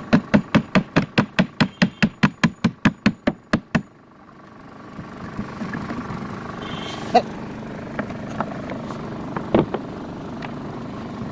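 Rapid, even hammer blows, about five a second, stopping abruptly about four seconds in; after that, steady background noise with a few scattered knocks.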